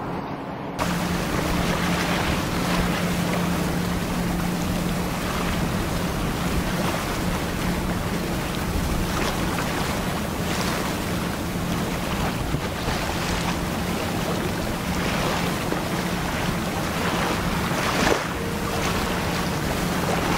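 Tugboat pushing a flat-deck barge through the water: a steady low engine drone under the rush of water at the bow and wind buffeting the microphone, with one sharp knock about 18 seconds in.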